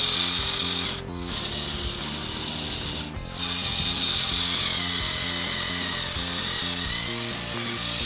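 Small electric motor of a DIY remote-control model tractor whining as it pulls a loaded trolley of soil, under background music.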